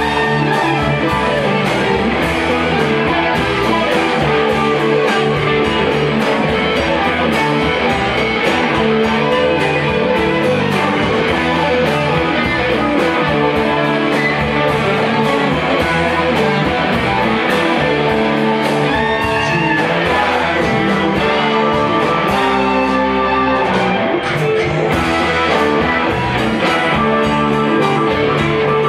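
Live rock band playing, led by several electric guitars over a steady drumbeat.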